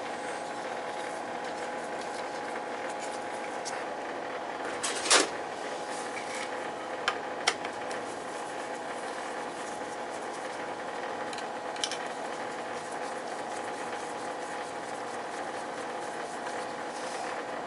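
A steady mechanical hum with a few sharp metallic clicks and taps, the loudest about five seconds in, from tools and metal parts being handled at an oil boiler's controls.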